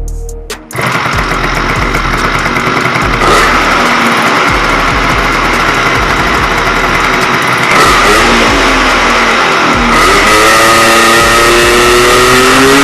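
Tomos A55 moped's small two-stroke engine running loudly on a Yamaha Blaster carburetor that is being tuned after running too rich. It comes in about a second in and is revved up and down near the end.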